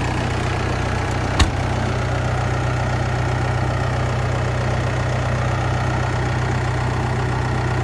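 New Holland T4 narrow-frame tractor's diesel engine idling steadily, with one sharp click about a second and a half in.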